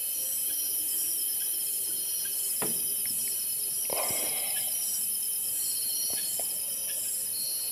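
Night insect chorus of crickets and other insects trilling steadily, with a few faint knocks and a brief rustle about four seconds in.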